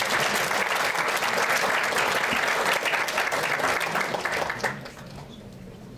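Audience applauding, dense clapping from many hands that dies away a little over four and a half seconds in.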